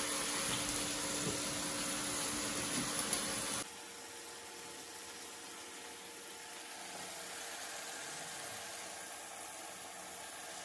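Steady sizzle of onion, tomato and peas frying in a kadhai on an induction cooktop. The sound drops suddenly to a quieter level about three and a half seconds in.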